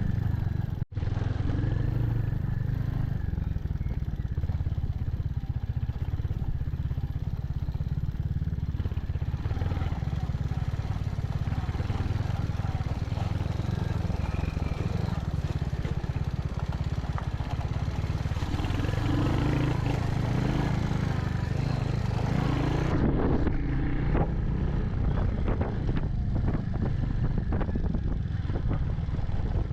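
Royal Enfield Hunter 350's single-cylinder engine running steadily as the motorcycle is ridden. The sound drops out briefly about a second in, and a few knocks come near the end.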